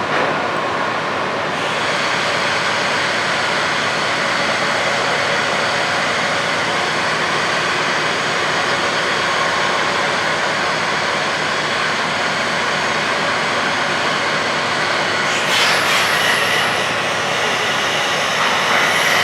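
Steady mechanical drone of the Reimei Maru car ferry's engines and thrusters as it pulls away from the quay, with a brief louder rush of noise about fifteen seconds in.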